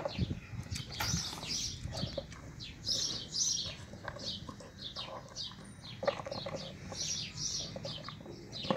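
A large dog eating chunks of bread from a plastic bowl: chewing and crunching, with a few sharp knocks and clicks. Small birds chirp over it the whole time, in short high repeated calls.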